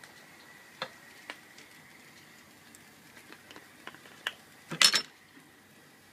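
Scattered light clicks and taps of kitchenware being handled on a table, then a short, louder clatter of dishes about five seconds in.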